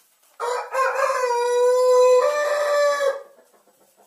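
A rooster crowing once: a single long crow of nearly three seconds that steps up slightly in pitch for its last part.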